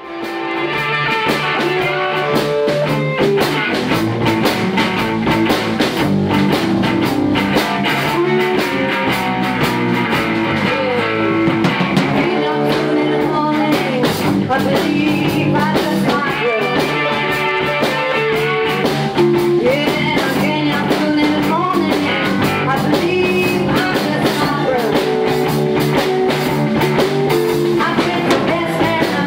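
Blues band playing a shuffle: slide guitar with gliding notes over electric guitar, bass and drums.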